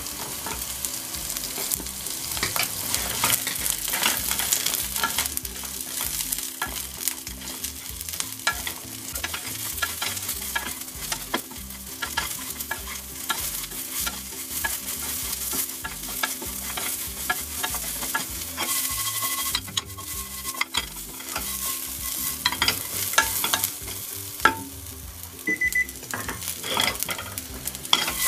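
Edamame pods stir-frying in garlic-and-chili oil in a nonstick frying pan: a steady sizzle with many clicks and scrapes from a wooden spatula and from the pods tumbling as the pan is shaken.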